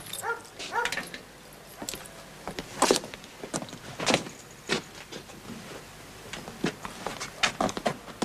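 Footsteps of a person walking on hard ground, with a few sharper knocks among them and a quick run of steps near the end. A brief squeak, rising in pitch, comes right at the start.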